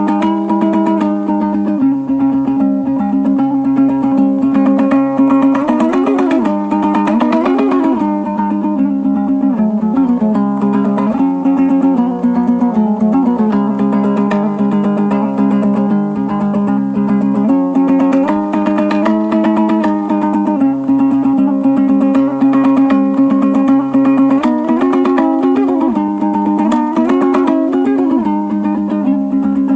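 Background music on a plucked string instrument, guitar-like, with fast, steady picked notes and a melody that moves throughout.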